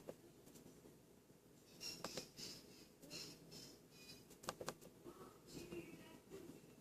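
Near silence: quiet room tone with a few faint sharp clicks and some soft breathy hiss.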